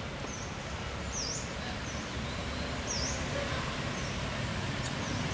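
Forest ambience: a high, thin chirp repeated a little more than once a second, alternating a short flat note with a longer dipping one, over a low steady rumble.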